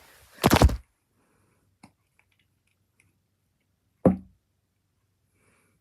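Handling noises: a short, loud rustle about half a second in, a faint click, then a single sharp knock about four seconds in; the alarm bell does not ring.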